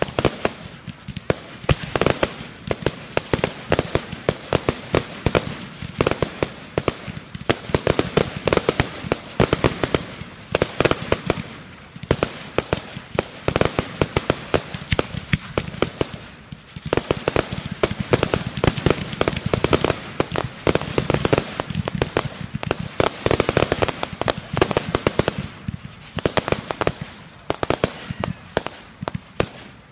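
Fireworks going off in a dense, continuous barrage of sharp cracks and pops, many a second, thinning briefly a few times before building again.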